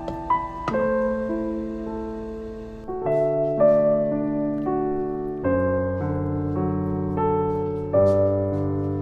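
Background piano music: a slow, gentle melody over chords, each note struck and then fading.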